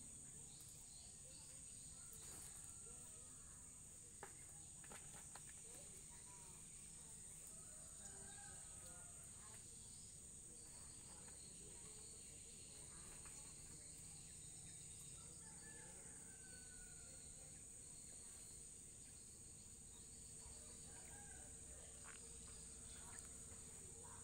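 Faint, steady, high-pitched insect chirring, like crickets, over near-silent background, with a few faint scattered clicks and short chirps.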